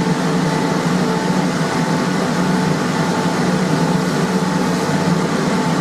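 Electric forge blower running steadily: a constant mechanical hum over a rush of air, with no change in speed.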